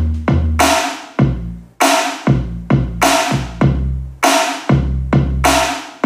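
Trap-style beat playing back from a DAW: a deep 808 bass line holding and changing notes, with a sharp electronic snare on every other beat, about every 1.2 seconds.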